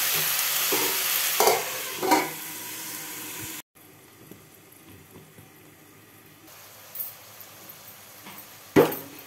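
Chopped beans, onion and green chillies sizzling in hot oil in an aluminium pot, with a few short clinks. After about three and a half seconds the sizzle drops abruptly to a much fainter hiss, and a sharp metal clank comes near the end.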